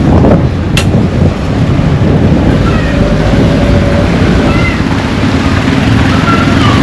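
Wind rumbling on the microphone over a steady hiss of rain, with a sharp click about a second in and a few faint short high calls later on.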